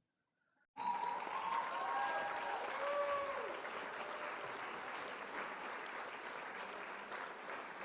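Crowd applause with a few whistles near the start, fading out slowly; it begins suddenly after a brief silence.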